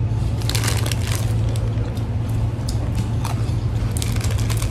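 Crunching of small cheese-filled sandwich crackers being bitten and chewed, in clusters of crisp crackles about half a second in and again near the end, over a steady low hum.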